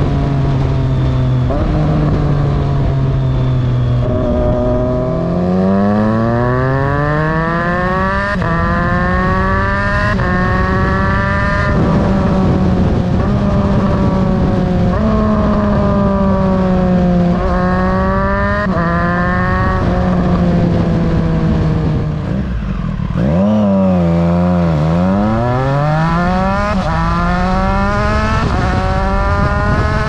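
Triumph Street Triple RS three-cylinder engine through an aftermarket Spark exhaust, heard close to the silencer while riding: the engine note climbs hard through the gears with quick upshifts about 8, 10 and 12 seconds in, holds fairly steady while cruising, pulls through more upshifts, dips on a downshift past the middle and climbs again near the end. Wind and road noise run underneath.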